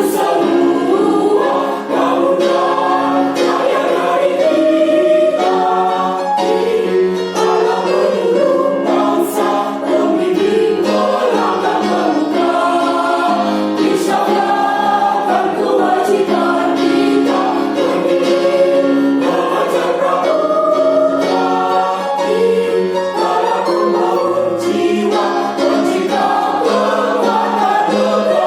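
A choir singing without a break, many voices holding chords together.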